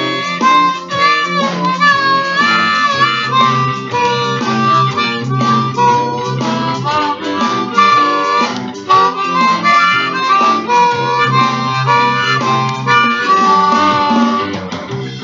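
Blues harmonica improvising, cupped in both hands: held notes that bend and waver, broken up by quicker runs. A guitar accompaniment plays underneath.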